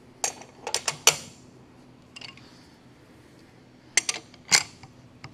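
Steel chuck key clicking and clanking in the jaw screws of a large four-jaw independent lathe chuck. A cluster of sharp metallic clicks comes near the start and another pair about four seconds in. The jaws are being adjusted, loosening the low jaw and tightening the high one, to center the workpiece.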